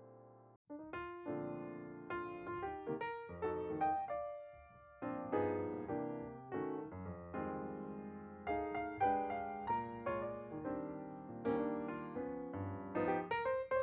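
Background piano music: a piano playing a melody with chords, which breaks off briefly about half a second in and then starts a new passage.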